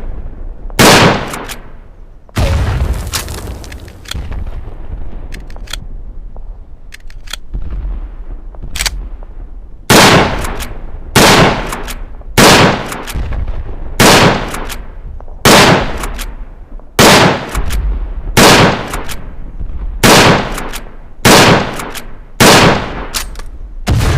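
Lee-Enfield Mk III .303 rifle firing: sharp single shots with echoing tails. There is one shot near the start, then a quieter stretch with a few faint clicks, then a steady string of shots at about one a second through the second half.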